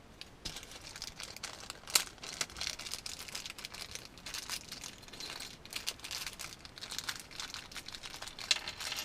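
Plastic packaging crinkling and rustling as small kit parts are handled and unpacked, with many small clicks and one sharper click about two seconds in.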